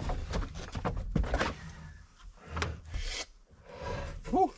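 Wooden boards being handled: irregular knocks and scraping of lumber, with a short rising squeak near the end.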